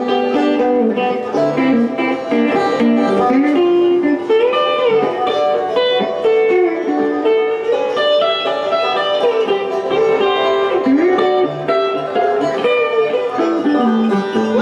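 An electric guitar and a banjo playing a bluegrass tune together, with notes that slide up and down.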